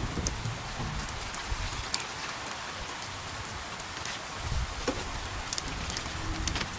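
Dense rain falling steadily, with scattered sharp drop impacts through it and a low rumble underneath.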